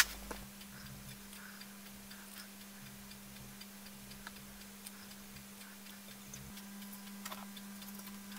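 Quiet room tone with a steady low hum, a sharp click at the very start and a few faint, scattered clicks after it.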